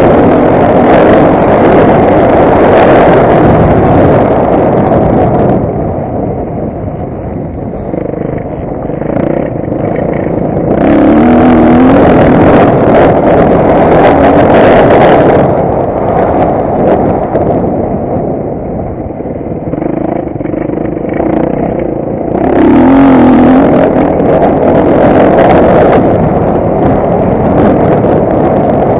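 Motocross bike engine running hard on a dirt track, with the throttle opening and closing: loud full-power stretches of a few seconds alternate with quieter ones, and the revs briefly rise and fall about 11 seconds in and again near 23 seconds.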